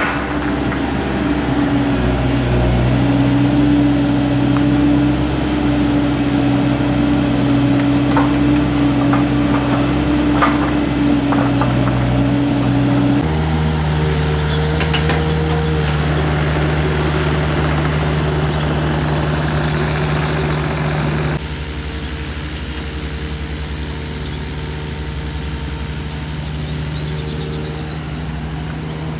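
Diesel engines of construction machinery running steadily, including a Hitachi mini excavator digging soil. Its engine note changes abruptly twice, and a few faint knocks sound in the first half.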